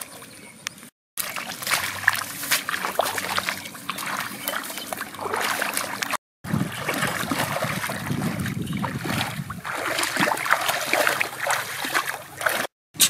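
Bare feet wading through shallow muddy water: irregular sloshing and small splashes, with three brief dropouts.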